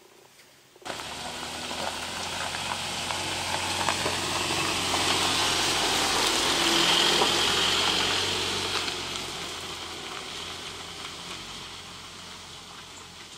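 Ford Ranger's 2.2 TDCi four-cylinder turbodiesel pickup driving past on a gravel dirt track, its tyres crunching over the stones. It comes in suddenly about a second in, grows louder as the truck passes, then fades as it pulls away up the track.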